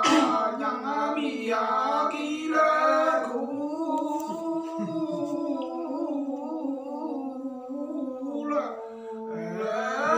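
Unaccompanied hà lều folk singing: a single voice sings a few short syllables, then holds one long, slightly wavering note, and starts a new phrase near the end.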